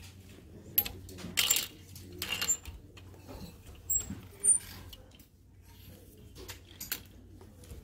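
Clear plastic clothes hangers clicking and sliding along a metal clothing rack as garments are pushed aside one by one, with fabric swishing between the clicks. The loudest clacks come about a second in and about four and a half seconds in.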